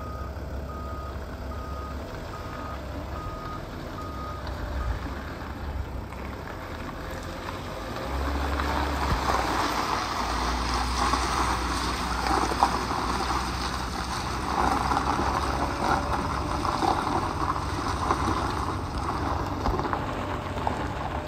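Dodge Sprinter 3500 box truck's Mercedes-Benz diesel running as the truck manoeuvres, its reversing alarm beeping steadily for the first four seconds or so while it backs up. From about eight seconds in the sound gets louder, with the diesel's low hum and tyres rolling over gravel.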